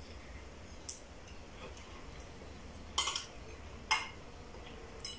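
A spoon clinking against a soup bowl twice, about three and four seconds in, with a faint tap about a second in.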